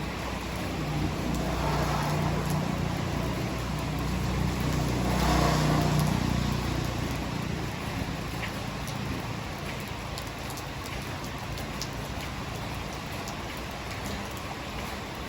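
Hard rain falling steadily. A low rumble swells and fades over the first half.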